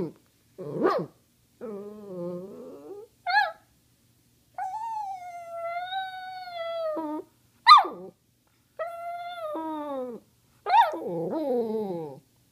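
Small dog 'talking' to beg for treats: a string of about seven howling, whining calls that bend up and down in pitch, with one long drawn-out howl in the middle and a few short sharp yips between the others.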